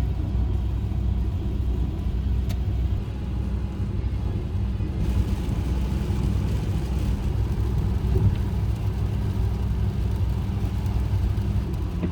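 Subaru car driving along the road, heard from inside: a steady low rumble of engine and road noise.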